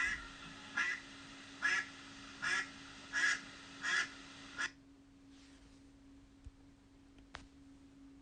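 A duck quacking: a run of six quacks, a little more than one a second, that stops just past halfway, leaving only faint background hiss, a steady low hum and a couple of soft clicks.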